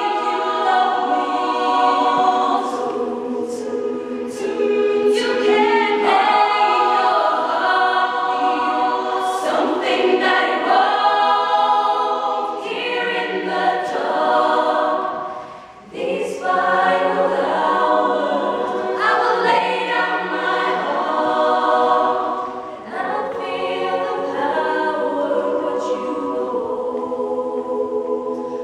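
Women's choir singing, many voices together, with a brief drop in volume about halfway through.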